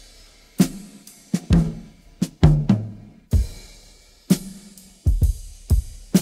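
Isolated drum kit track from a rock song, playing a slow, spacious beat. Sharp drum strikes land every half second to a second, some leaving a low pitched ring, with cymbal wash on top.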